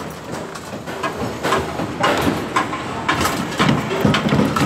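Irregular knocks and clatters of steel rebar and a wooden formwork box being worked into place, with a low rumble near the end.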